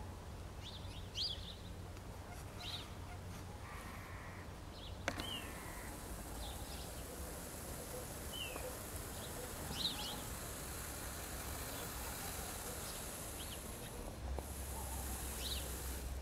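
Scattered short, high bird calls every second or two over a faint steady outdoor background, with a single click about five seconds in.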